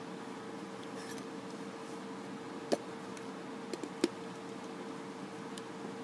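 Plastic Lego bricks clicking as a small Lego puzzle box is handled and opened. There is a sharp click about two and a half seconds in, then two small ticks and a louder click about a second later, over a steady low hum.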